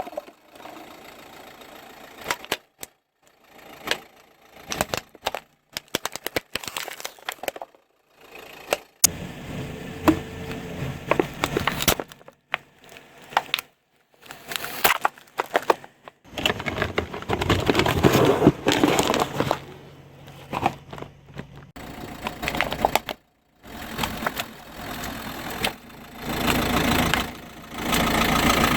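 A car rolling over objects and crushing them: sharp cracks and crunching over a low rumble of tyres and engine. The sound comes in several short clips, each ending with a sudden cut to silence.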